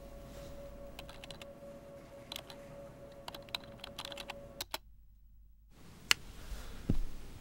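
Computer keyboard typing: irregular clicks over a faint steady hum, which cuts off abruptly a little past halfway. After about a second of silence come a single sharp click and a low thump near the end.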